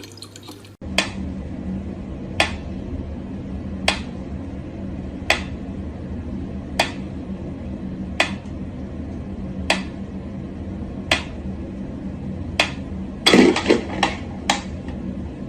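Sharp clicks or light knocks repeating at an even pace, about one every second and a half, with a quick cluster of several near the end, over a steady low hum.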